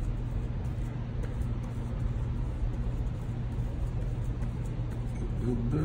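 Steady low hum of a motor or appliance running, with a few level tones and no clear taps or knocks.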